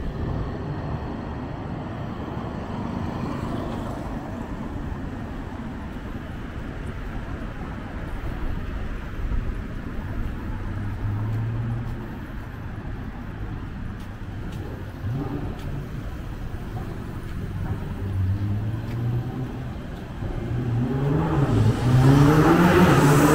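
Street traffic: a steady low rumble with cars passing in the lanes alongside. Near the end a car engine grows loud and rises in pitch as the car pulls up close.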